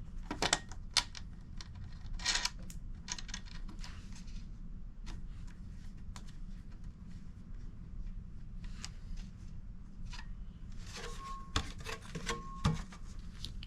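Sluice box riffle mats being handled and fitted into the box: irregular rubbing, scraping and clicks, with two short ringing clinks near the end, over a steady low hum.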